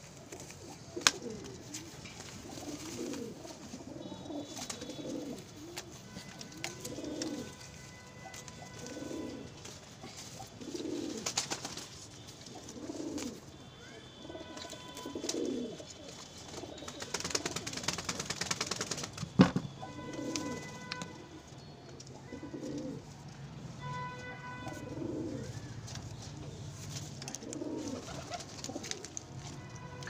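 Domestic pigeons cooing over and over, low rolling coos every second or two, with a burst of rustling and a sharp knock a little past the middle.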